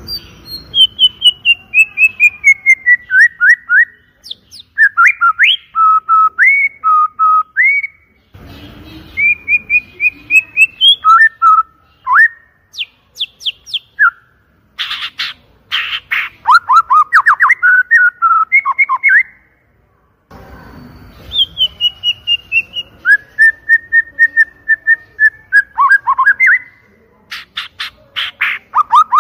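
White-rumped shama (murai batu) singing loud, clear whistled phrases of rapid notes, many sliding down in pitch, broken by short pauses every few seconds. Harsh rasping notes are mixed in about halfway through and near the end.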